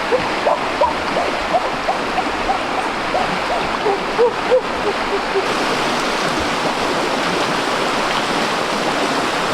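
Steady rush of flowing stream water, with a run of short, repeated chirping calls from a small animal over the first half that then stop.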